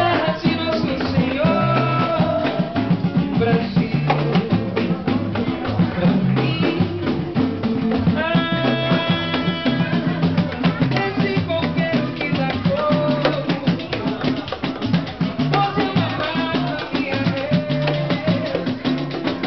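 Live samba played on acoustic guitar with a hand drum and other percussion keeping a busy, steady rhythm over a moving bass line, and a man's voice singing at times.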